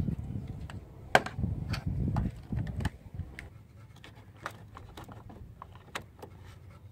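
Handling noise as a lithium jump pack and its clamps are hooked to a dead car battery: one sharp click about a second in, low rumbling and rustling for the next two seconds, then scattered faint clicks.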